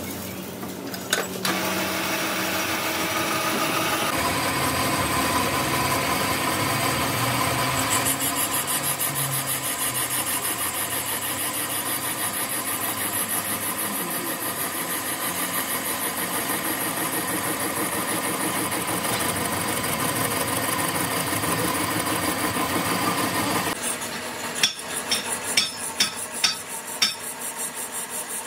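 Metal lathe running and turning the face of a metal hydraulic-cylinder coupling plate held in its chuck, a steady machining sound with several held tones. Two clicks about a second in as the chuck is tightened with its key; near the end the steady cutting sound drops away and about five sharp ticks follow.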